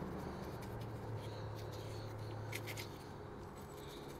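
Faint soft dabbing and ticking of a chip brush stippling wet resin into fiberglass cloth, over a low steady hum that fades out about three quarters of the way through.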